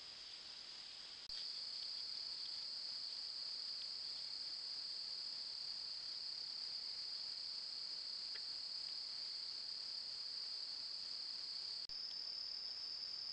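Steady night chorus of crickets: a continuous high-pitched trill that does not change. It gets louder about a second in and drops out for an instant near the end.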